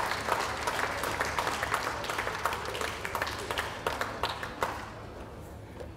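Crowd of spectators applauding, the clapping thinning out and fading away over about five seconds.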